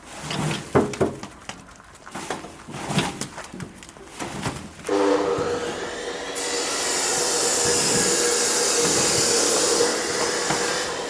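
Reassembled ratchet feed drive of a Takakita manure spreader being turned by hand, giving a run of separate clicks and knocks. About five seconds in it changes to a continuous metal rubbing with a steady tone, joined for a few seconds by a loud hiss.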